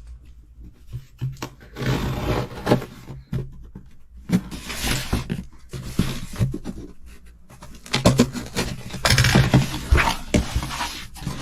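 Cube packaging being opened by hand: bursts of rustling and tearing, with clicks and taps of the box between them.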